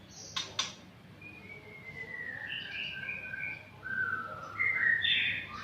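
Caged songbird singing a run of clear whistled notes: a long falling glide, then quicker notes that step up and down, loudest near the end. Two sharp clicks come just before the song starts.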